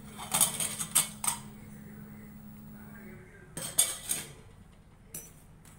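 Aluminium pot lid clattering against the pot's rim as it is lifted off and set down, in two bursts of metal clinks: one in the first second and a half, another about three and a half seconds in.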